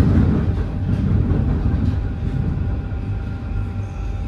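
Paris Métro train running, a steady rumble of wheels on rails with a faint steady whine above it, heard from inside the carriage.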